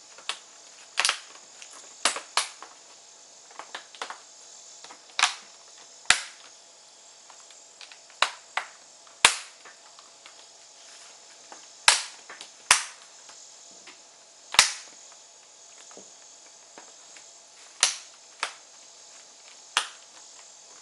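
Plastic laptop display bezel clips snapping into place as the cover is pressed on around the screen edges: a series of sharp clicks at irregular intervals, fifteen to twenty in all.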